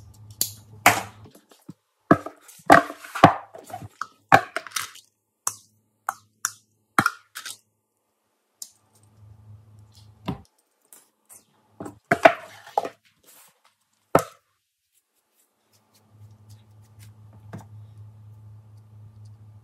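Small plastic fidget toys being worked by hand: irregular clicks, snaps and taps in clusters, starting with the buttons of a fidget controller pad and later the squeezing of a pea-pod popper. The clicking stops about two-thirds of the way through.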